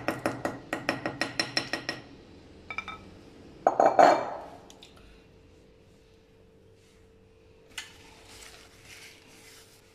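A metal spoon clinking against a bowl while mixture is scooped into a piping bag: a quick run of sharp clinks, about five a second, for two seconds, then a couple more, and a louder knock about four seconds in.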